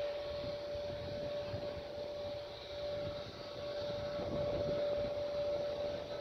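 Jet airliner's engines running on a distant runway: a steady high whine over an uneven low rumble.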